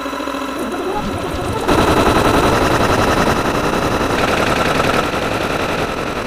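Layered sound effects: very rapid repeated bangs like machine-gun fire over several steady electronic tones. It jumps louder about two seconds in.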